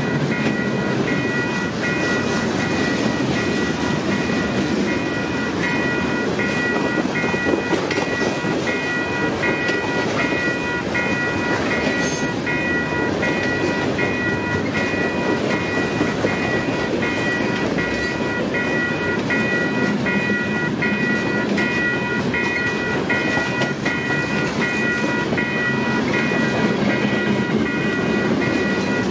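Freight cars (boxcars, a covered hopper, tank cars) rolling past on the rails with a steady rumble and clatter of wheels. Over it, the grade-crossing bell rings on and on in an even repeating pattern.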